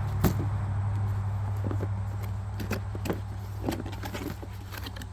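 Cardboard box and packaging being opened and handled: a series of short clicks and crinkles, over a steady low hum.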